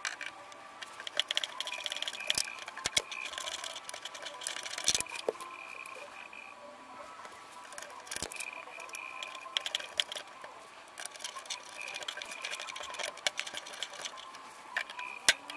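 Small metallic clicks, ticks and scrapes, irregular and close by, as pliers and fingers grip and unscrew the small hex jack screws from a projector's VGA ports.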